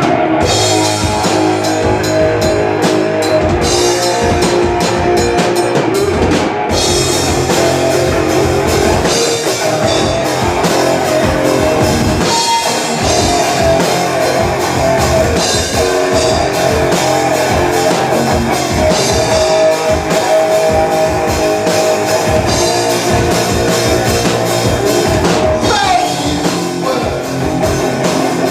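Live rock band playing a song: a drum kit keeping a steady beat under guitar, with singing.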